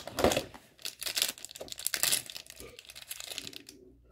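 Packaging of a Disney Doorables blind pack being handled and torn open by hand: irregular rustles with short sharp tearing sounds, dying away near the end.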